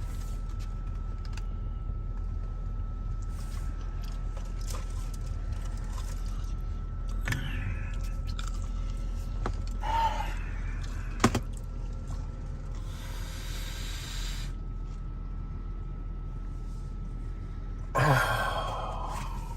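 Steady low hum under scattered small clicks and rustles of someone eating a sandwich, with one sharp click about halfway through, a brief hiss a little later, and a short vocal noise near the end.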